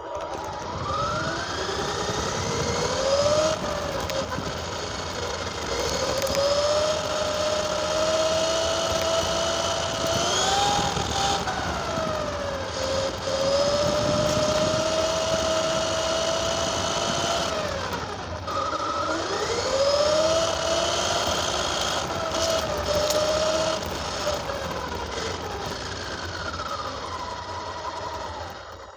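Radio-controlled car's motor running as the car drives. Its pitch rises and falls over and over as the car speeds up and slows down.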